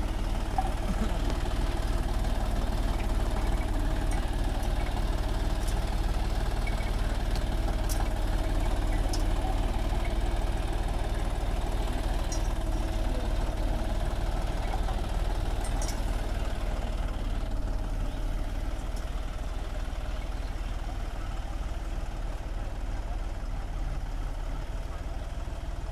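John Deere tractor's diesel engine running steadily under load as it pulls a potato planter, easing slightly in level in the last third.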